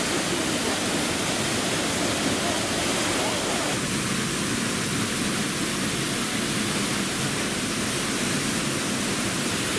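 Steady, even rush of water falling at a mountain-river waterfall.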